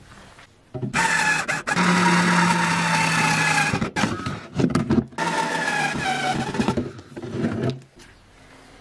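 Cordless screwdriver driving screws through a plastic jug into a wooden board: a loud motor whine in two runs of about three and two seconds with short stop-start bursts between and after, its pitch sinking slightly during each run.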